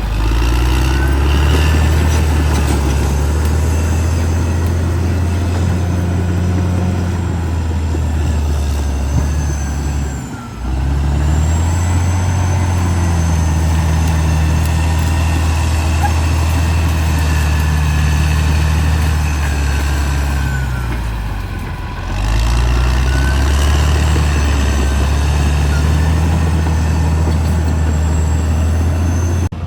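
CAT D6R XL bulldozer's diesel engine running hard as the dozer works, dropping off briefly about a third of the way in and again about two-thirds in, then pulling back up.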